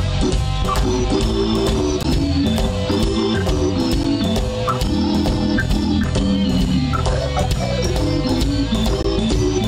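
Live blues-rock band playing an instrumental passage: electric guitar, bass guitar and drum kit, with the drums keeping a steady beat.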